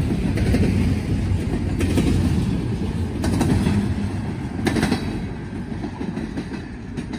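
Norfolk Southern intermodal train's cars rolling past, a steady rumble with the wheels clacking over rail joints a few times; the sound fades near the end as the train moves away.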